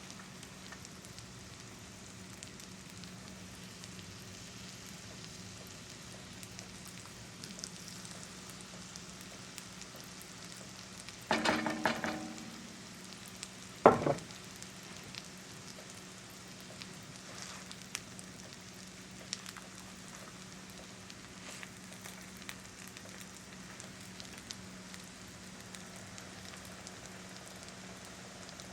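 Potato pancakes pan-frying in oil and butter in a skillet on medium-low heat: a soft, steady sizzle with small crackles. About eleven seconds in there is a brief louder sound, and a couple of seconds later a sharp knock.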